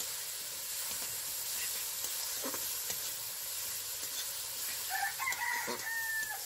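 Onion and spice masala sizzling in a metal wok, with the metal spatula scraping and clicking against the pan as it is stirred. About five seconds in, a rooster crows, ending on a long held note.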